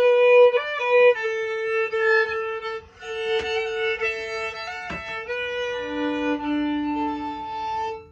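Solo fiddle bowed in slow, long held notes, with a lower second note sounding together with the melody for a couple of seconds near the end.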